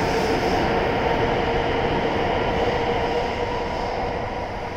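W7 series Shinkansen electric train pulling out and running past along the platform: a steady rush of wheels and running noise with a held humming tone, fading near the end as the last car goes by.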